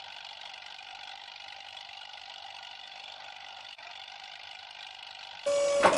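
Bulldozer engine running steadily, thin-sounding. Near the end a much louder horn-like tone comes in and drops in pitch.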